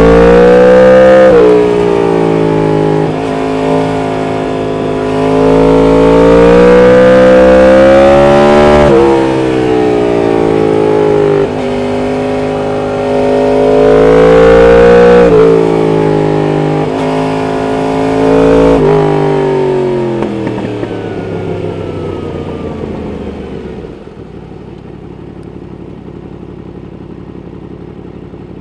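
2016 Yamaha MT-10's crossplane inline-four with an Austin Racing exhaust, accelerating hard: the engine pitch climbs and drops back four times, as at gear changes. It then falls away as the bike slows and settles to a much quieter steady running near the end.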